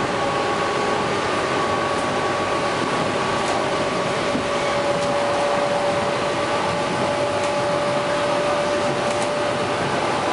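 EP2D electric train running at speed, heard inside the passenger car: a steady rumble and rush with a steady whine over it, and a few faint clicks.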